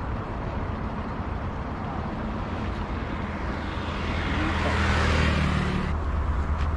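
A motor vehicle's engine running steadily, with a broader rush that builds to its loudest about five seconds in and then drops away, like a vehicle passing by.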